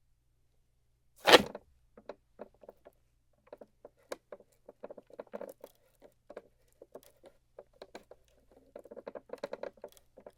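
Small wooden box drawer being worked: one sharp wooden knock about a second in, then many light, irregular wooden clicks and rattles, busiest near the end.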